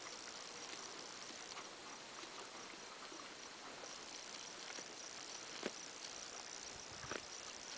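Faint background hiss with a thin, steady high-pitched whine. Two short clicks come near the end, about a second and a half apart.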